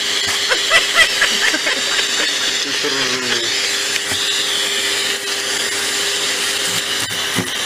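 Vacuum cleaner running steadily with its hose nozzle held against a cat: a continuous hiss with a steady hum under it.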